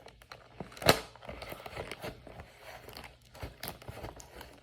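Pencil point jabbing and tearing into the packaging of a trading-card box: irregular crinkling, scraping and clicking, with one sharp snap about a second in.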